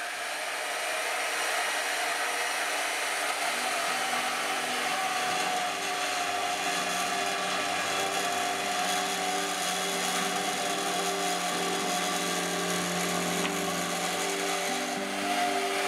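Portable band saw running steadily as its blade cuts through 3/8-inch square steel bar stock held in a vise, with a steady whine and a ringing tone from the blade on the metal.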